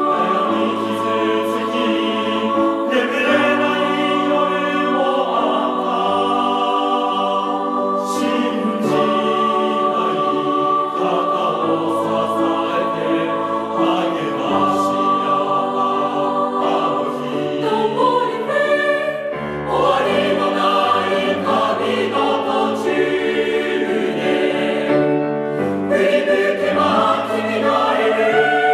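Choral music: a choir singing held, slowly changing chords.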